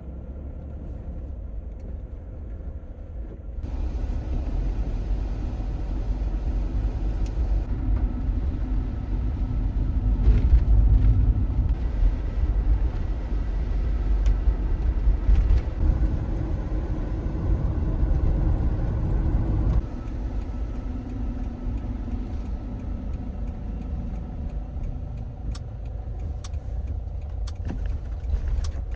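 A vehicle driving, heard from inside: a steady low engine and road rumble that picks up about three and a half seconds in.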